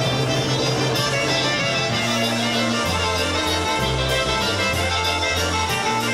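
Live polka band playing a dance tune, accordion over a steady beat, with the bass stepping between notes about once a second.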